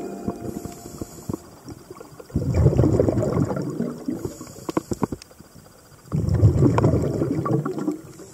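Scuba diver breathing through a regulator underwater: a faint hiss on each inhale, then a gurgling rush of exhaled bubbles lasting about two seconds, twice.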